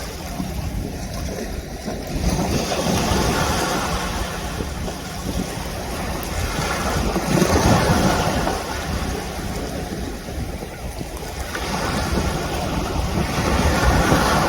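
Rushing water and wind noise with no pitch, swelling and easing three times in long surges like surf.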